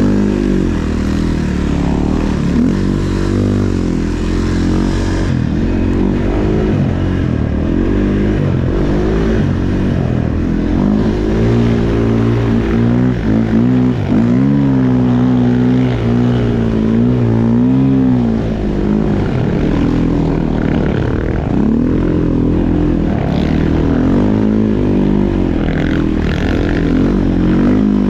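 Snow bike engine revving up and down continuously as it rides through deep powder, its pitch rising and falling with the throttle. Around the middle it holds a steadier note for several seconds.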